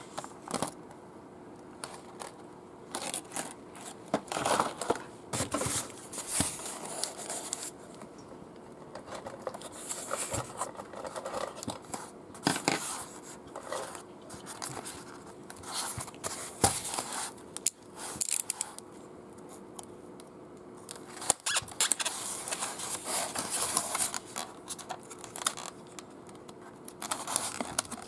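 Action-figure packaging being unpacked by hand: clear plastic blister trays crinkling and clicking, with cardboard and styrofoam scraping and rustling in irregular bursts.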